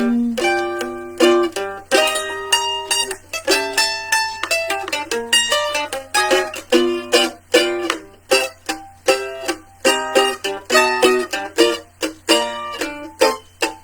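A solo plucked string instrument playing an instrumental break with no singing: a quick run of picked notes and chords, several plucks a second.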